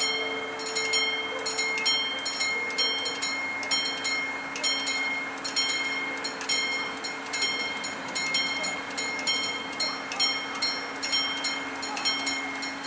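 Level-crossing warning bell ringing in a steady run of quick strikes, about two a second, while the crossing barriers come down: the warning that a train is approaching.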